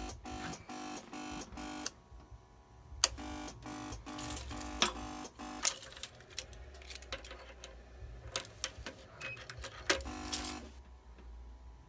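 Starter solenoid of a 2004 Suzuki GSX-R1000 chattering in bursts when the start button is pressed: an even pulse of clicks with a buzz, about four a second, broken by sharp single clicks, and the engine does not crank. It goes with a no-start in which the electrics dim and pulse, although the battery is full.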